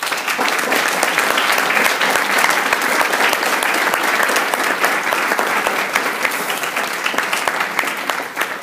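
Audience applauding after a speech, a dense patter of many hands clapping with a few sharp claps close by. It begins suddenly and thins out near the end.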